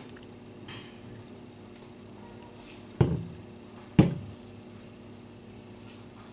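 Two dull knocks about a second apart over a faint steady hum.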